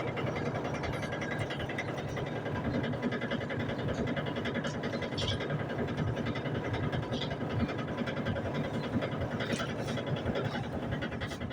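Electrolux LTD09 8 kg top-loading washing machine in its spin cycle, giving a steady mechanical running noise.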